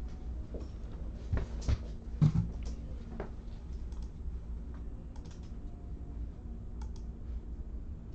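Typing on a computer keyboard: irregular key clicks, with a few louder knocks in the first couple of seconds.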